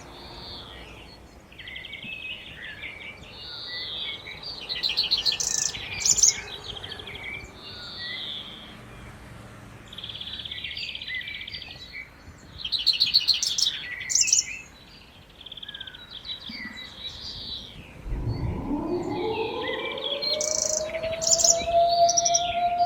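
Birds chirping and trilling over a faint background hiss. About 18 seconds in, a synthesized civil defense siren starts winding up, its pitch rising steeply and then levelling into a steady tone, and a second siren begins winding up near the end.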